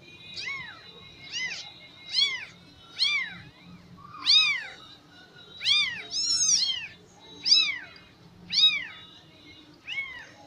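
Newborn Persian kittens mewing: about ten short, high-pitched cries, roughly one a second, each rising then falling in pitch.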